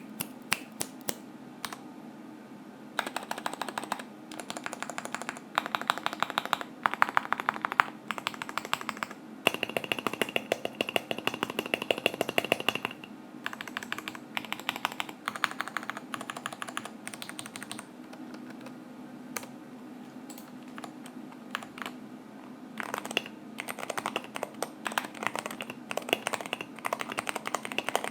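Mechanical keyboard with SA keycaps on stock Cherry MX Black linear switches, with springs that still ping, and Costar-stabilized keys, being typed on. A few single keystrokes come first, then bursts of fast typing with short pauses between.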